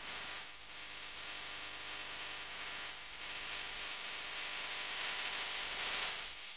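Steady hiss of outdoor background noise, swelling a little louder a few seconds in.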